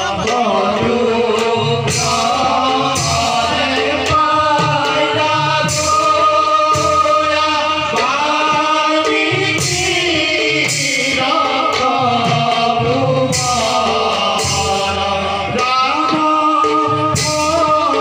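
Bhaona song: a voice singing over instrumental accompaniment, with percussion striking at a regular beat.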